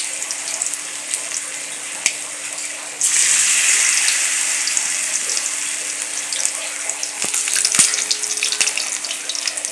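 Oil sizzling and crackling in a frying pan as the sajna flower fritter mixture cooks, getting louder about three seconds in. A faint steady hum runs underneath.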